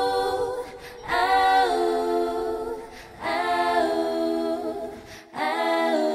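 A cappella vocal harmony: several voices holding sung chords in phrases of about a second and a half, with short breaks between them.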